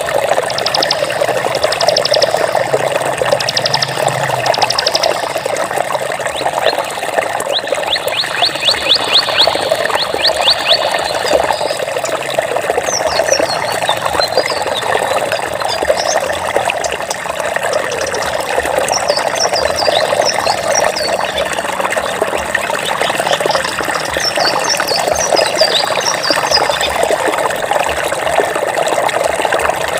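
Flowing water trickling steadily. Over it, a rapid high trilling call repeats several times in the first ten seconds, then short high chirps come in scattered runs through the middle and later part.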